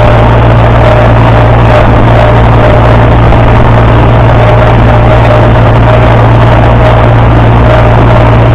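International Harvester 560 tractor engine running loud and steady at a constant speed, with no change in pitch.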